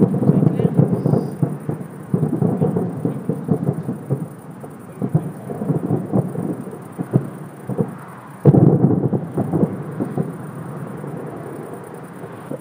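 Fireworks finale: a rapid barrage of aerial shells bursting in dense overlapping booms and crackles. A fresh salvo comes about eight and a half seconds in, then it dies away near the end.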